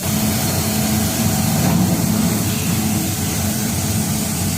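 Mattress quilting machine running, a steady mechanical drone with a low hum.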